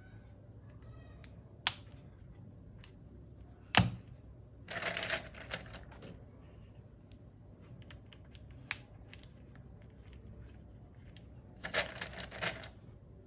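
Sharp plastic clicks and two short bursts of clattering from mechanical keyboard parts being handled and fitted during a build, the loudest single click about four seconds in.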